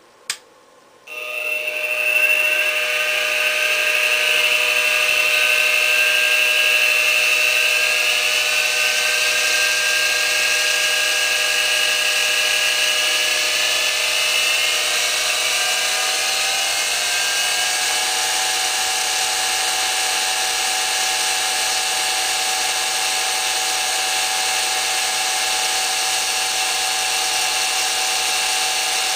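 CNC-converted Sieg X2 mini mill starting up after a click about a second in, its tones gliding up as it comes up to speed, then running steadily with a high multi-tone whine. Between about 14 and 18 seconds the whine glides up to a new, higher steady pitch.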